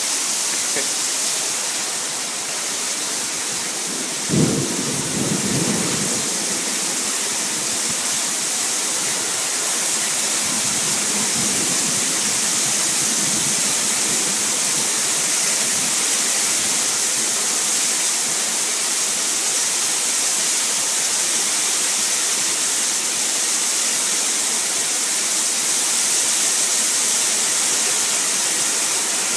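Heavy wind-driven rain pouring down in a steady, loud hiss. About four seconds in, a sudden low rumble breaks out and fades over a second or two.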